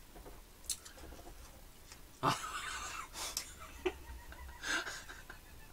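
Crisp fried churros crunching as they are bitten and chewed, a handful of sharp crunches, mixed with breathy, stifled laughter.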